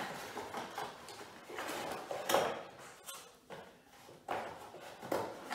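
Plastic Scalextric slot-car track sections being handled and fitted onto a support box: a few separate sharp plastic knocks with faint scraping between them.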